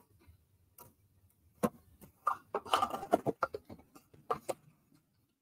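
Small paper snips cutting cardstock tabs: a couple of sharp snips, then a cluster of snips and rustling of the stiff card as it is handled, and two more snips near the end.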